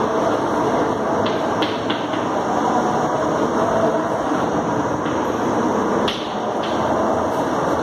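Chalk writing on a blackboard: a few sharp taps and light scrapes as words are chalked, over a steady loud background hiss.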